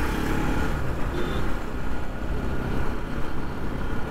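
Steady road and traffic noise heard from a moving motorcycle, with a low rumble of wind on the microphone.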